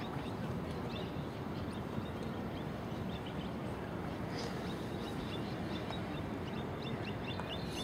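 Steady low outdoor background rumble with faint small-bird chirps now and then, more of them near the end.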